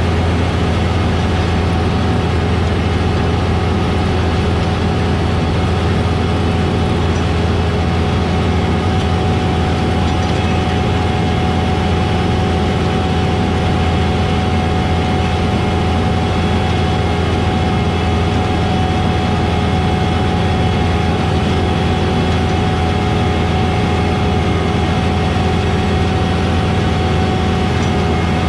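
A heavy farm diesel engine on the beet-harvesting machinery runs steadily at a constant speed, a loud, even low drone with a few steady tones over it.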